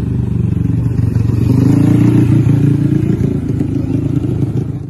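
Vespa scooter engine revving hard: a loud, steady low drone whose pitch climbs a little about a second and a half in.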